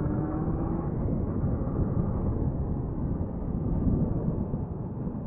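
Motorcycle riding along: the engine's pitch climbs slightly during the first second, then steady low wind rush over the microphone with the engine underneath.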